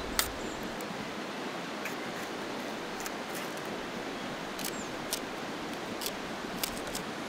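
Steady rush of a river, with a few light clicks of a knife against a metal plate as tomato and spring onion are sliced over it.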